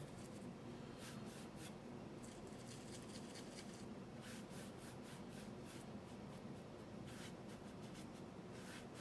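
Faint, intermittent strokes of a paintbrush across wet watercolour paper, soft scratchy touches spaced a second or more apart.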